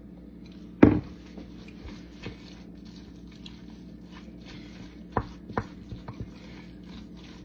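A vinegar bottle set down on the table with one loud knock about a second in, then a wooden spoon stirring and mashing a thick sardine mixture in a glass bowl, clicking against the bowl a few times.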